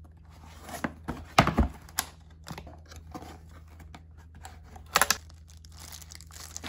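Cardboard box being opened by hand, with scattered sharp clicks and knocks as the flaps and box are handled. Near the end comes the crinkle of a plastic wrapper.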